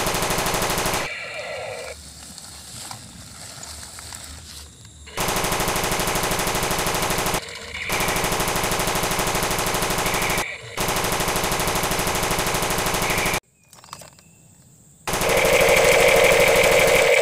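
Electronic machine-gun sound effect: rapid-fire bursts of about two to three seconds each, separated by short breaks, with a quieter stretch in the first few seconds.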